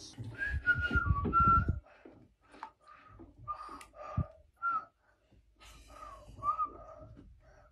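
A baby whistling: a string of short, high whistled notes through pursed lips, some of them sliding up or down. In the first two seconds a louder low rumble lies under a held whistled note that drops slightly in pitch.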